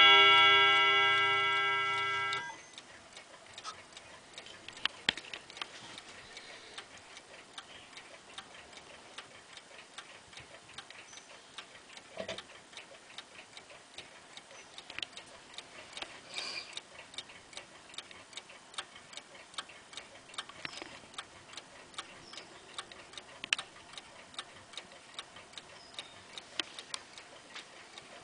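F.H.S. Hermle mantel clock's gong rods ringing a struck chord that fades and cuts off abruptly about two and a half seconds in. After that the clock movement ticks steadily, a few ticks louder than the rest.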